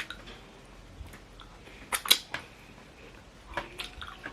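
Close-up eating sounds: quiet chewing with scattered sharp clicks, the loudest a pair about two seconds in.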